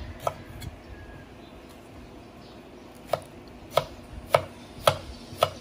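A chef's knife slicing through an onion and striking a thick round wooden chopping block. There is one knock soon after the start, then a steady run of five cuts about every half second from about three seconds in.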